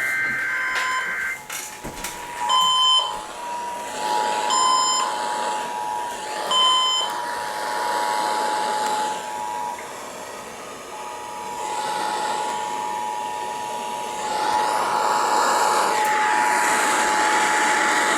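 Emergency Alert System broadcast over a radio: the last of the warbling digital SAME header data bursts in the first second, then the steady two-tone EAS attention signal that opens an alert, sounding over radio static hiss. Three short electronic beeps sound about two seconds apart over the tone in the first half, and the hiss grows louder near the end.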